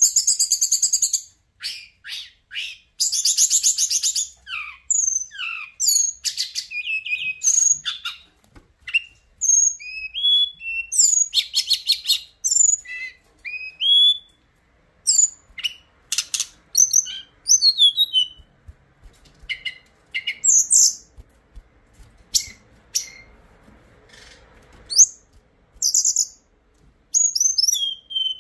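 Hill blue flycatcher (Cyornis whitei) singing: a loud song of short, clear whistled phrases sliding up and down, broken by a few rapid buzzy trills, with brief pauses between phrases.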